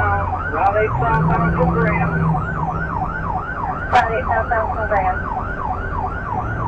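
Police siren in fast yelp mode, rising and falling about three times a second, heard from inside a pursuing cruiser over the low hum of the car. A sharp click about four seconds in.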